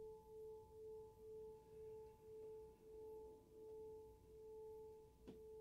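Clear crystal singing pyramid ringing faintly with one steady tone and a weaker higher overtone, its loudness wavering about twice a second. A light tick sounds near the end.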